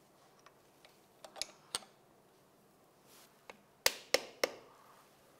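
A few sharp metal clicks and taps as a bearing is worked onto the end of an engine's crankshaft in the crankcase; the three loudest come in quick succession near the end.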